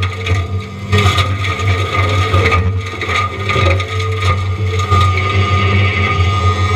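Diamond Mower forestry mulching head on a John Deere 333E compact track loader grinding pine wood: a steady machine drone with irregular cracks and crunches of wood being shredded.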